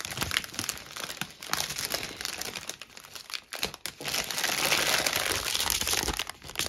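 Thin clear plastic bag crinkling as hands rummage through it and pull out small plastic packets of diamond painting drills, loudest about four to six seconds in.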